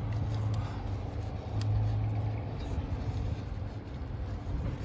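A low steady rumble that swells at the start and again around two seconds in, with a few faint clicks as hands work the plastic battery terminal cover into place.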